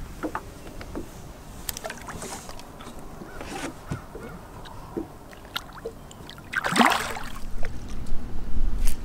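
Water lapping at the side of a small fishing boat with light knocks of hands and hull, and about seven seconds in a short splash as a largemouth bass is let go and swims off. A low rumble of wind on the microphone follows.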